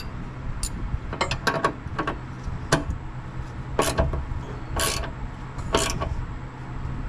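Socket ratchet clicking in short, uneven strokes as a nut is run along the threaded strut rod of a mini truck's front suspension, over a steady low hum.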